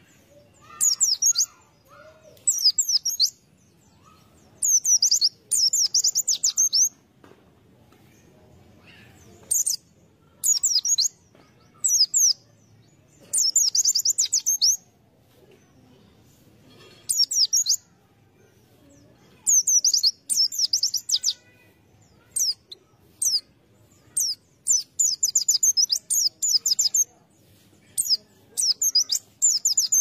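White-eye (pleci) singing: repeated bursts of rapid, high-pitched warbling twitters, each phrase lasting under a second to about two seconds, with short pauses between.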